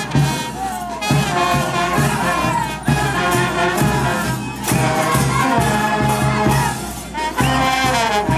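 Street brass band playing: trumpets carry the melody over a steady bass drum beat. A high wavering whistle-like sound comes in near the end.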